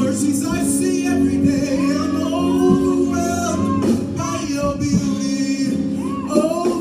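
Live church worship music: voices singing a gospel praise song over a band, with sustained chords and drum hits.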